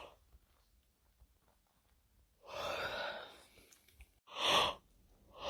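A person yawning: a long, breathy, unvoiced breath about two and a half seconds in, then a short, sharper breath about a second later.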